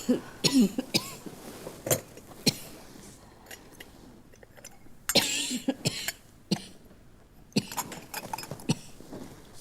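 A sick man coughing again and again, in several short fits of harsh coughs with pauses between.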